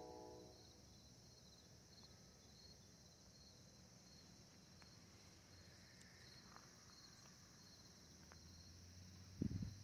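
Faint crickets chirping in a steady, even pulse over a constant high insect drone. A brief low thump near the end is the loudest sound.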